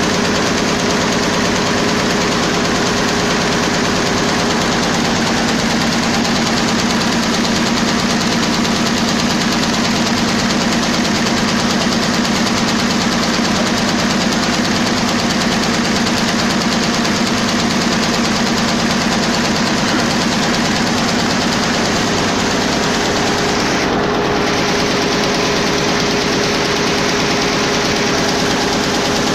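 Schiffli embroidery machine running steadily, its row of needles stitching in a fast, even mechanical clatter over a steady hum.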